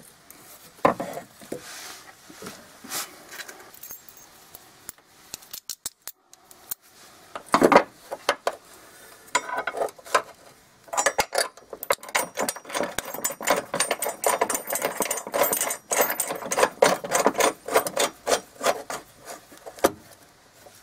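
Small steel hardware clinking and rattling: washers, a lock washer and nuts handled and threaded by hand onto a running-board bracket's studs. Scattered clicks at first, then a dense run of quick metallic ticks and clinks through the second half.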